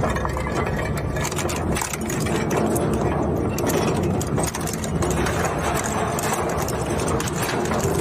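Plastic shredder machine running: a steady motor hum under a continuous dense crackle of plastic being chopped.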